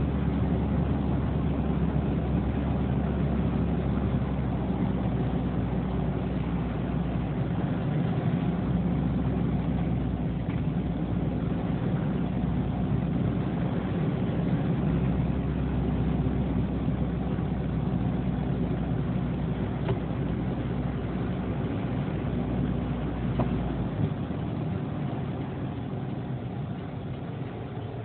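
A vehicle's engine and road noise heard through a dashcam's microphone inside the cab, a steady drone. The deepest part of the hum drops away about 24 seconds in, and the sound eases off slightly toward the end.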